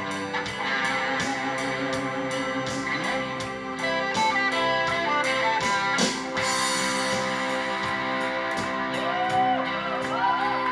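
Live rock band playing: electric guitars over bass, keyboard and a steady drum beat with cymbals, with bending, wavering guitar notes near the end.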